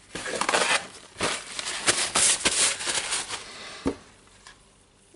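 Handling noise: a cloth rag rustling, with a few sharp knocks and clicks of metal parts handled on a wooden workbench. It dies down after about four seconds.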